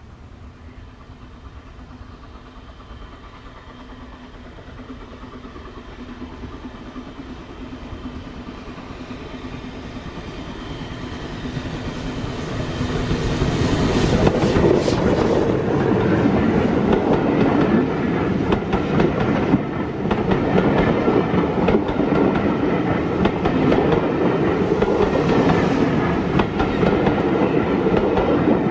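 Steam-hauled passenger train headed by BR Standard Class 4 4-6-0 No. 75069, growing steadily louder as it approaches and passing close by about halfway through, then its carriages running past with a rumble and rapid clicking of wheels over the rail joints.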